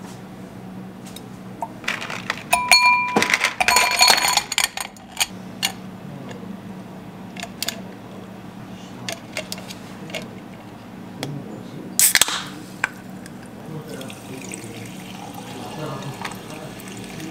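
Ice cubes dropped into a glass tumbler, clinking loudly with short ringing glass tones, then lighter clicks as frozen fruit slices are placed with metal tongs. A sharp crack about two-thirds through, then sparkling water poured from a can, fizzing over the ice near the end.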